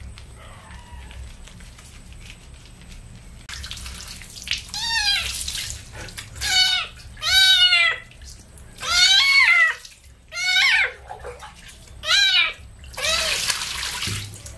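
Kitten meowing repeatedly while being bathed: about seven high, arching cries starting about four seconds in. Under the cries, water pours and splashes as it is rinsed.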